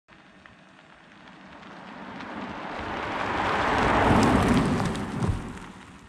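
An electric Tesla Model 3 Performance drives close past, heard mostly as tyre noise rolling over a gritty driveway surface. The sound builds to a peak about four seconds in, then fades away, with a few small ticks of grit along the way.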